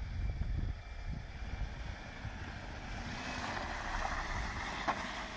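Toyota station wagon on front snow chains driving slowly through deep snow, its tyres and chains crunching the snow louder as it comes close, over a steady rumble of wind on the microphone.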